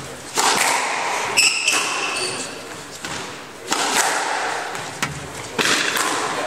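Squash rally: the ball cracks off rackets and the court walls in sharp hits about once a second, each ringing on in the echo of the enclosed court. About a second and a half in, a shoe gives a short high squeak on the hardwood floor.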